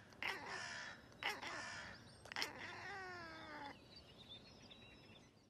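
A cat meowing: three drawn-out calls, the last one longer and falling in pitch, then fading to faint scraps of sound.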